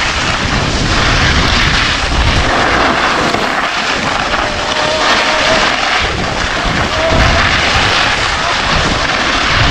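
Wind rushing over the microphone of a skier moving downhill, mixed with the steady hiss and scrape of skis sliding on packed snow.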